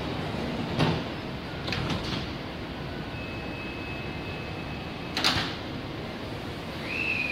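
Sliding doors of a Taipei Metro C381 train and the platform screen doors shutting, with thuds about a second in and about five seconds in. A steady high warning tone sounds between them. Near the end, a pitched whine starts and falls in pitch as the train's electric drive begins to pull away.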